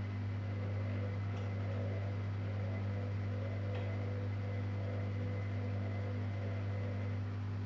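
Zanussi Jetsystem Turbodry ZWD 1000 washer-dryer running with a steady low hum and a few faint steady whines above it, with two faint ticks along the way.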